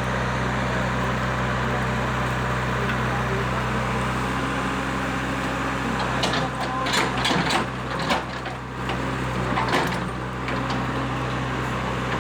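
JCB backhoe excavator's diesel engine running steadily while digging a footing pit. Around the middle, a run of knocks and scraping clatter as the bucket cuts into soil and stones.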